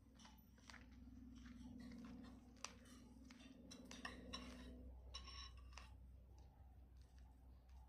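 Near silence: faint scattered clicks over a low steady hum.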